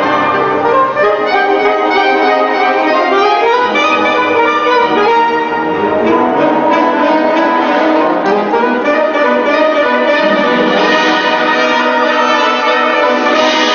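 Soprano and alto saxophones playing a classical concerto duet, accompanied by a full military wind band.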